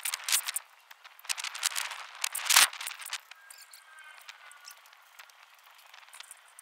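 Metal clinking and rattling from an engine hung on a hoist chain as it is handled, with one louder clank about two and a half seconds in; the clatter dies down after about three seconds.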